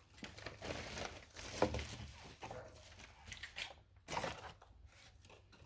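Handling noises as die-cast toy cars are moved and set aside: scattered light clicks and taps with some rustling of packaging.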